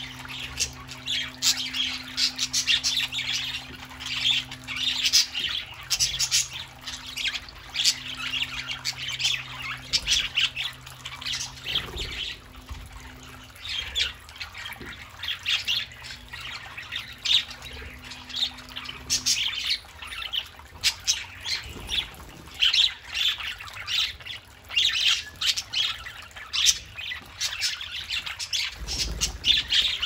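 A flock of budgerigars chattering continuously, a dense run of quick warbles, chirps and short squawks.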